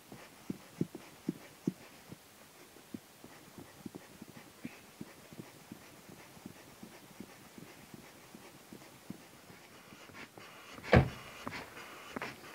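Air pump inflating an inflatable PVC boat through a corrugated hose: a run of short, soft puffs of air, about two or three a second. About eleven seconds in, a single loud thump.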